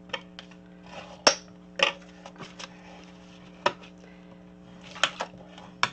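Kraft-paper card being folded and creased with a bone folder on a cutting mat: several sharp taps and knocks, the loudest about a second in, with light rubbing of paper between them. A steady low hum runs underneath.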